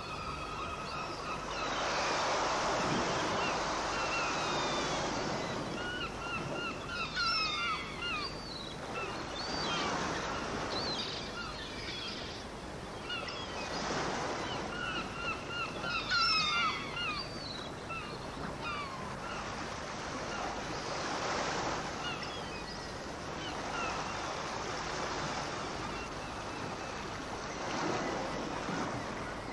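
Sea water washing in swells every few seconds, with birds calling over it in many short, falling cries.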